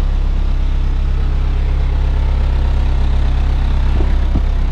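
Toyota Previa engine idling steadily, its exhaust running through a freshly fitted rear muffler. Two light knocks come about four seconds in.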